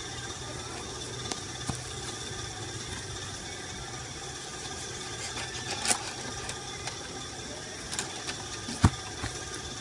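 Steady outdoor background hum, with a few faint clicks and one sharper knock near the end.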